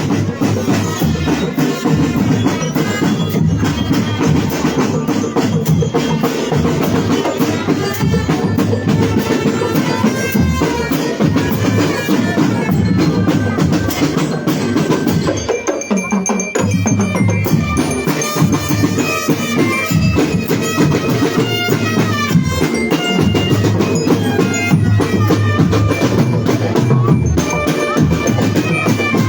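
A marching drum band playing: drums beat steadily under a high melody line that comes through more clearly about halfway in.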